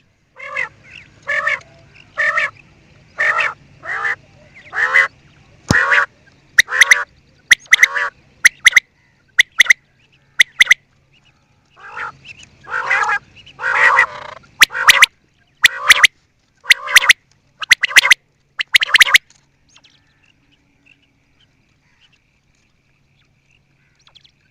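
Quail calling: a long series of short, harsh calls, about one a second, that stop a few seconds before the end.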